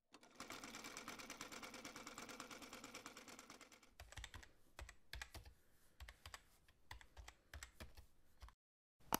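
Faint keystroke sound effect: a rapid, even run of clicks for about four seconds, then slower separate keystrokes with soft thuds as the title types out.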